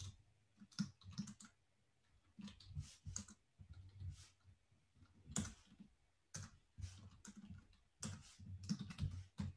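Typing on a computer keyboard: faint, irregular keystrokes in short runs with brief pauses between them, as code is entered in an editor.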